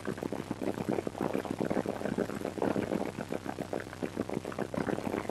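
Helicopter heard from inside its doors-off cabin while climbing out after takeoff: a rapid, even chop of the rotor blades over a steady engine hum, with wind rushing through the open doors.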